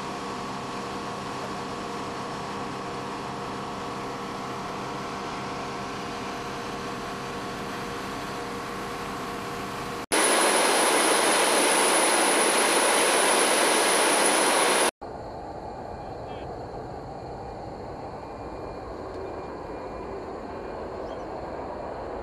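Jet aircraft noise on a flight line, in three edited sections: a steady hum with several held tones, then, about ten seconds in, an abrupt cut to a much louder hiss with a high steady whine lasting about five seconds, which cuts off sharply to a quieter steady rumble.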